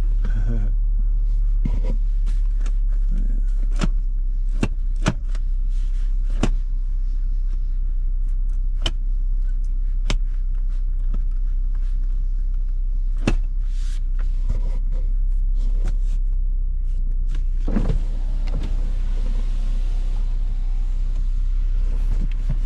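Range Rover idling with a steady low hum heard from inside the cabin, under a series of sharp clicks and knocks from the interior controls and seat being worked. About eighteen seconds in, a power window motor runs and the glass lowers, letting in a steady outside hiss.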